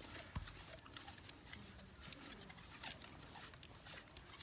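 Faint, irregular small clicks and scrapes, as of something being handled.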